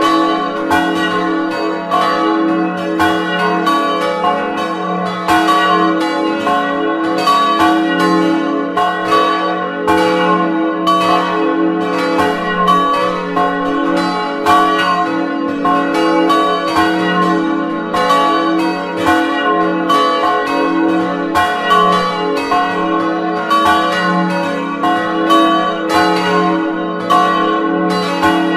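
Several swinging bronze church bells ringing together at close range in the bell chamber. Clapper strokes from the different bells overlap in a dense, unbroken peal, each stroke leaving a long ringing hum.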